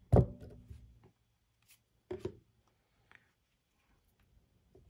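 Handling noise from a stack of trading cards being moved and squared in the hands: a loud thump just after the start, a softer knock about two seconds in, and a few faint ticks.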